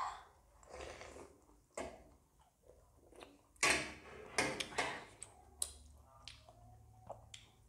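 Eating sounds: noodles slurped and chewed, with a metal spoon scraping and clicking against a steel plate, loudest a little past the middle.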